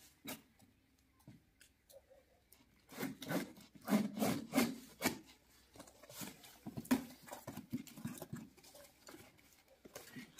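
Cardboard carton being opened by hand: a run of rubbing and scraping strokes on the cardboard, busiest about three to five seconds in, with a sharper scrape near seven seconds.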